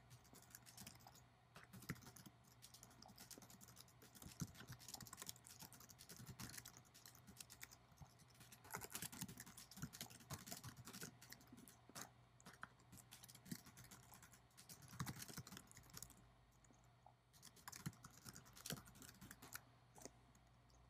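Typing on a computer keyboard: a long run of faint key clicks, with a brief pause about sixteen seconds in.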